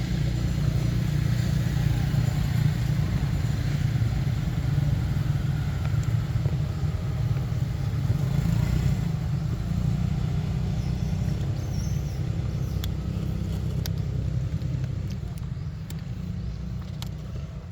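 A steady low rumble, easing off near the end, with a few faint clicks in the last few seconds.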